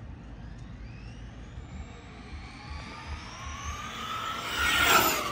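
Traxxas Stampede 4x4 RC truck, fitted with a Castle 1512 2650kv brushless motor on 4S, on a full-throttle speed run. Its high motor and gear whine climbs in pitch and grows louder as it accelerates toward the listener, peaks as it shoots past about five seconds in, then drops in pitch as it goes away.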